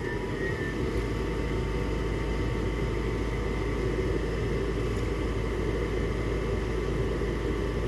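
A gas furnace's draft inducer fan runs steadily just after the power is switched back on, a constant whirring hum. This is the start of the ignition cycle, when the furnace is about to light.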